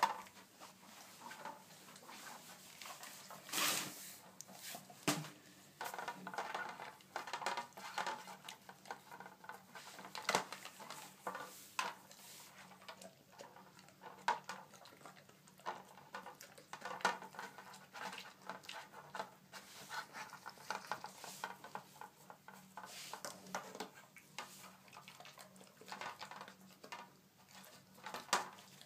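An Airedale terrier nosing and pawing at a rotating-disc treat puzzle: irregular clicks, knocks and clatter from the disc and treats, with short bursts of sniffing.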